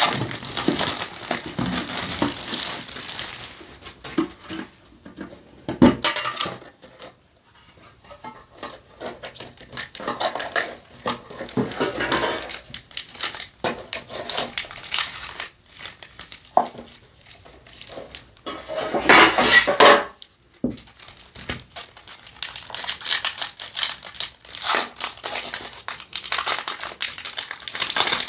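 Plastic shrink-wrap crinkling as it is peeled off a metal Yu-Gi-Oh! Mega-Tin, with the tin clattering and knocking. Foil booster packs rustle as they are lifted out, and a foil pack crackles as it is torn open near the end.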